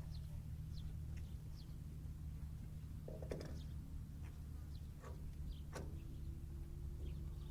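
Scattered light clicks and taps, like die-cast toy cars and plastic track pieces being handled, over a steady low hum.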